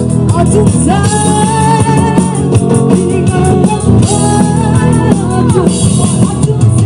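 Live amplified gospel song: a woman singing two long held phrases into a microphone over electronic keyboard and electric guitar with a steady beat.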